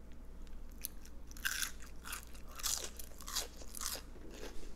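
A person chewing a battered onion ring close to the microphone: a run of crisp crunches, about two to three a second.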